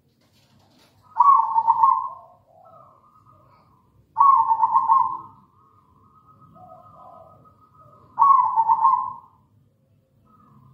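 Zebra dove (perkutut) cooing: three loud coo phrases about four seconds apart, each about a second long, with softer coos between them.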